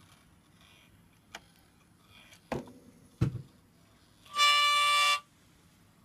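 A Zenmuse H3-3D camera gimbal gives the abnormal sound of its initial failure: a loud, buzzing tone lasting under a second near the end. Two sharp knocks come before it, less than a second apart.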